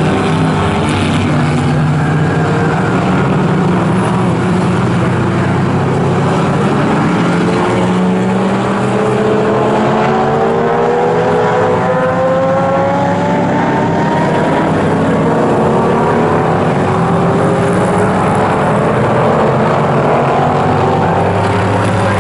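Engines of several pre-1966 classic GT race cars passing at racing speed, their notes rising in pitch as they accelerate out of a corner, one after another.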